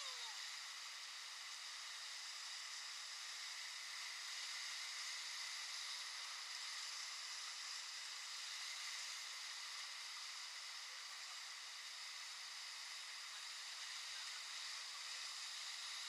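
Whitewater rapids rushing and churning around an inflatable raft: a steady, even hiss of fast water.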